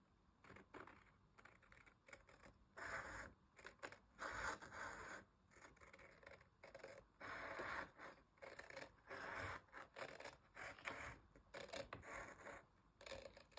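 Scissors trimming washi tape along the edge of a journal page: faint, intermittent cutting and scraping strokes.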